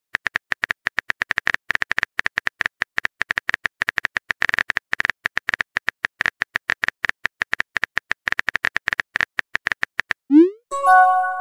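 Rapid keyboard clicks of a phone texting app's typing sound effect for about ten seconds, then a short rising swoosh and a brief chime near the end as the message is sent.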